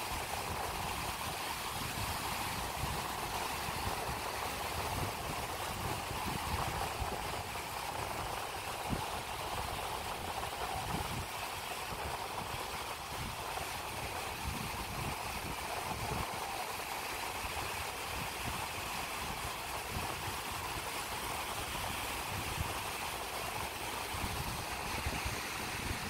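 Gentle surf: small waves breaking and washing up a sandy beach in a steady hiss, with a low fluttering rumble underneath.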